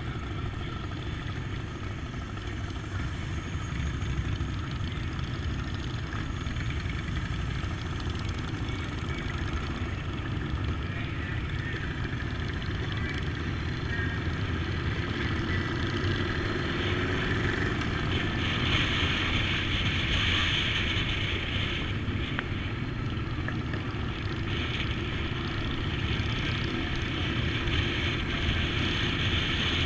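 2014 Honda CTX700 motorcycle ridden at cruising speed: a steady engine rumble under a rush of wind on the microphone. The wind noise grows louder about two-thirds of the way through and again near the end.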